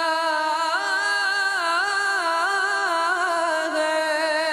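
A man's voice singing a naat, a devotional Urdu song, holding one long ornamented note. About a second in the pitch climbs and wavers up and down in quick turns, then settles back onto a steady lower note near the end.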